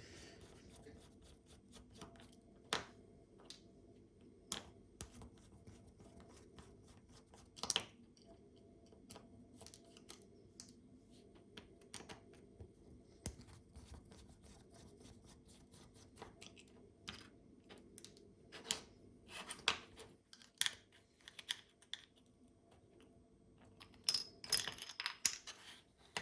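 Small plastic parts of a car remote key clicking and tapping as they are handled and pried apart, with the battery cover coming off. The clicks are scattered and irregular, with a quick run of louder ones near the end, over a faint steady hum.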